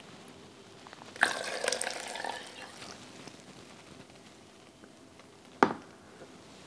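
Water pours or splashes briefly, starting suddenly about a second in and lasting under two seconds. A single sharp knock follows near the end.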